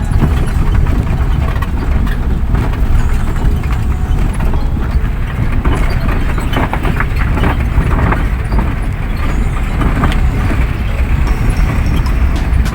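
A vehicle in motion, heard from on board: a loud, steady low rumble of engine and travel noise.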